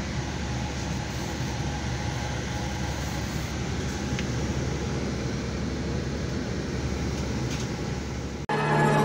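Steady low drone of a coach bus's engine and air-conditioning hiss, heard from inside the bus. It cuts off abruptly near the end as intro music begins.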